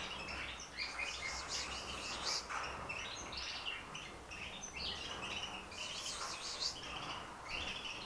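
Several caged Spanish timbrado canaries chirping and singing short, overlapping phrases without a break: the first song notes of birds just being started on song.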